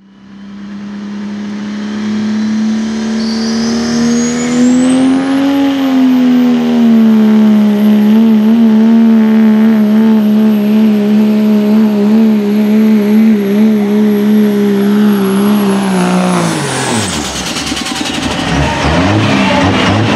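Dodge Ram pickup's Cummins diesel engine running flat out under load while pulling a sled, with a steady drone and a high turbo whistle. The whistle climbs in pitch over a couple of seconds and then holds. About sixteen seconds in, the engine lets off, and drone and whistle fall away together as the pull ends.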